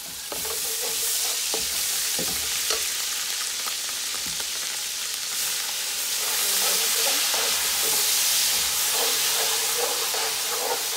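Ginger-garlic paste sizzling hard in hot oil with fried onions, the sizzle jumping up just after the start as the paste hits the oil. A metal slotted spoon stirs and scrapes against the pot with short, irregular strokes.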